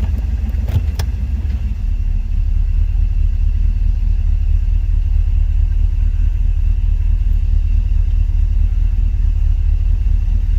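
Chevrolet 305 small-block V8 running steadily with a low rumble, a little louder after about two seconds, with a few faint clicks near the start.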